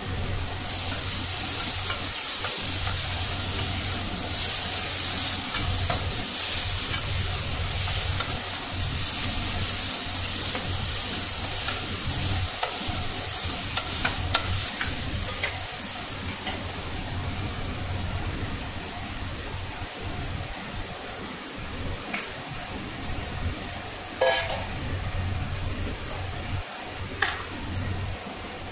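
Tomatoes and onions frying with a steady sizzle in an aluminium kadai, while a slotted metal spoon stirs and scrapes against the pan with scattered clinks. A low steady hum runs underneath.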